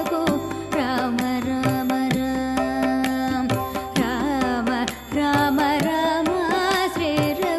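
Carnatic devotional song in raga Yamuna Kalyani, set to Adi tala: ornamented, sliding melody lines accompanied by violin, keyboard, mridangam and tabla, with steady drum strokes keeping the beat.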